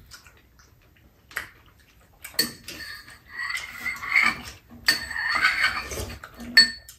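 Metal spoons clinking and scraping against bowls during a meal: a few separate clicks, then two longer stretches of scooping and stirring, with a sharp clink near the end. Eating sounds are mixed in.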